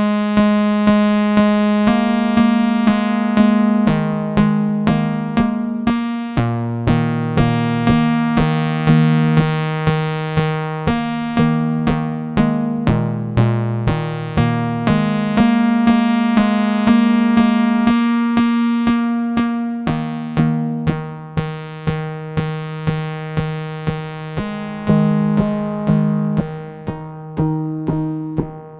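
Eurorack modular synthesizer sequence: a Castor & Pollux oscillator pinged through a Steady State Gate low-pass gate, giving plucked, quickly decaying notes at about two a second, with Sarajewo bucket-brigade delay echoes. The low notes shift pitch every second or two.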